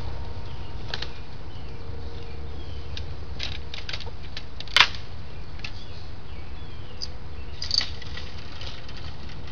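Scattered clicks and rustles of a person moving through brush, with one sharp click about five seconds in, over a steady low rumble.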